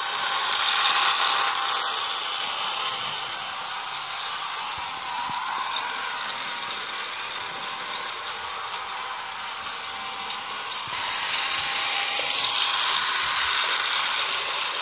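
Toy train running on its track with a steady high whine from its motor. It grows louder as the locomotive comes near, briefly about a second in, then with a sudden step up about eleven seconds in.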